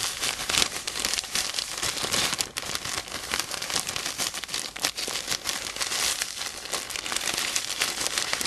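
A plastic bag of salt being shaken with a plastic model kit part inside: continuous crinkling of the bag and a crackly hiss of salt grains, studded with quick clicks, as the salt scuffs the part's surface to a matte finish.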